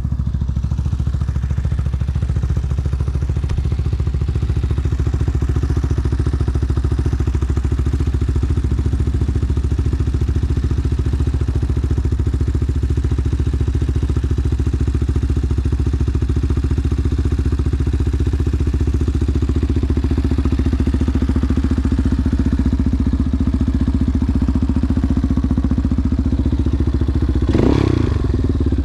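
ATV engine running steadily at an even speed, with a brief clatter near the end.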